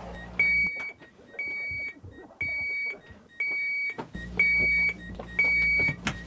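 Train's passenger emergency alarm (passcom) beeping, a steady high electronic tone about half a second long repeating once a second, six beeps. A low rumble underneath drops away for a few seconds in the middle and returns.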